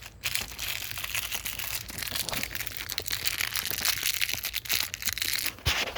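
Continuous crackling rustle with many small clicks: handling noise from hands working the door handle parts close to a handheld phone's microphone.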